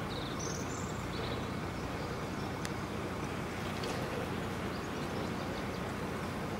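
Steady outdoor ambience beside a shallow river: running water with a low rumble underneath. A few short high bird chirps come in the first second or so.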